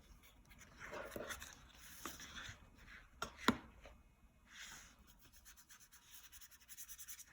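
Faint soft strokes of a watercolour paintbrush brushing across paper, with a few small taps and one sharper click about three and a half seconds in.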